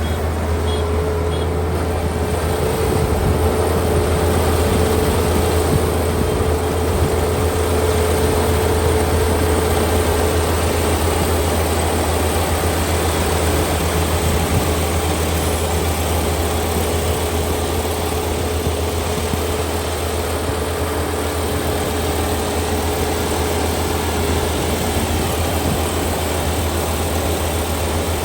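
Kubota ER572 combine harvester running steadily, its 72-horsepower engine giving a constant low drone with a steady whine over it that fades near the end.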